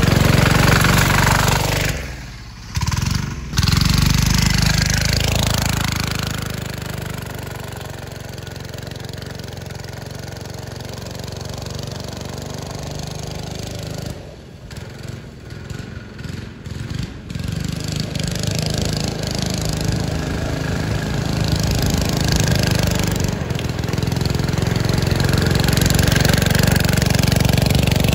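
Small single-cylinder 196cc diesel engine on a go-kart running under load. The kart splashes through a muddy puddle at first, then the engine fades as it drives away and grows louder again as it comes back nearer.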